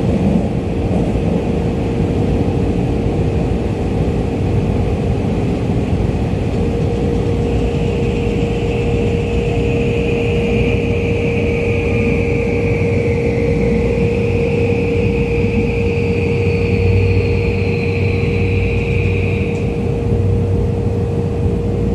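Tokyu 2020 series subway train running through a tunnel, heard inside the car: a steady rumble of wheels on rails with a constant hum. From about a third of the way in, a high whine rises over it and slowly sags in pitch before fading near the end.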